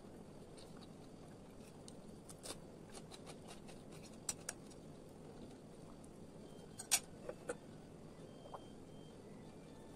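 Faint room hiss with scattered light clicks and knocks of household objects being handled: a pair a little after four seconds in, and the sharpest cluster around seven seconds.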